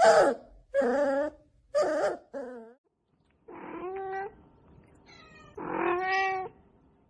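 A domestic cat meowing repeatedly, about six drawn-out meows in a row, the first four close together and the last two longer and more spaced.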